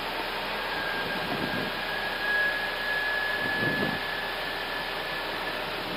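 Steady rush of airflow and systems noise on an Airbus A319 flight deck during the approach, with a thin, steady high tone that comes in about half a second in and fades near the end.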